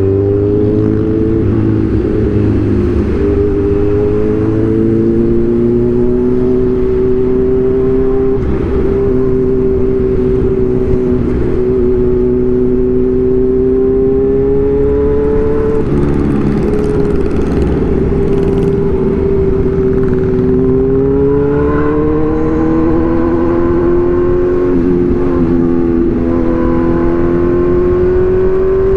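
Kawasaki Z1000 inline-four engine and exhaust running under way, its pitch drifting up and down with the throttle. There is a brief break in the note about halfway through and another near the end, like gear changes, and the pitch climbs steadily in the last third.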